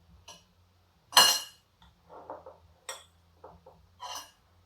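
Cutlery clinking against a dish as eating begins: three sharp clinks, the loudest about a second in, with softer scraping and handling sounds between them.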